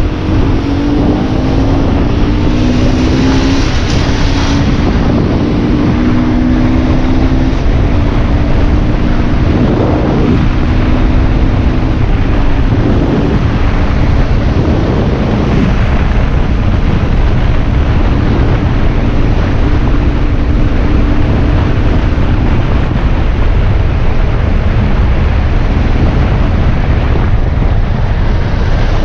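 Aprilia RX enduro motorbike engine running at road speed, heavily buffeted by wind on the microphone. The engine note rises in steps over the first several seconds as the bike accelerates, then holds steady.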